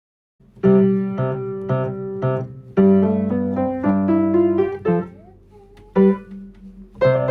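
Solo piano playing a short, simple passage of struck notes and chords in brief phrases, starting after half a second of silence, with a pause about two-thirds through before the next phrase begins.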